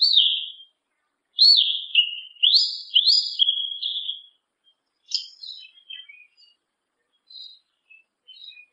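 Yellow-legged thrush (sabiá-una) singing: a phrase of loud, clear whistled notes, each sweeping up and sliding down, then softer, scratchy twittering notes from about five seconds in.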